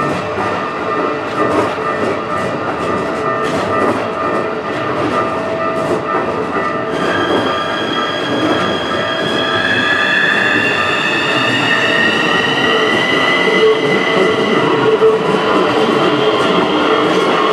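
Keikyu electric train passing over a level crossing, with wheel and rail noise. From about seven seconds in, its traction motors whine in a slowly rising pitch as it accelerates. Steady ringing tones, likely the crossing's warning bell, run underneath.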